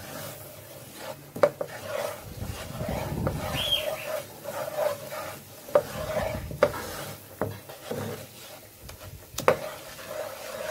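A wooden spoon stirring and scraping a thick butter-and-flour roux around a frying pan, with several sharp knocks of the spoon against the pan and a faint sizzle of the hot butter underneath.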